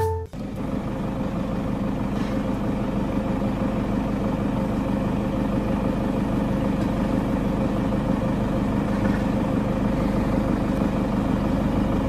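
A vehicle engine idling, a steady low hum with a faint even drone over it.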